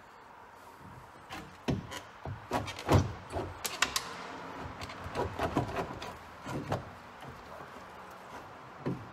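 Irregular knocks and clunks of an old Seastar hydraulic steering helm being worked loose and pulled out of a boat console, the loudest about three seconds in, with one more knock near the end.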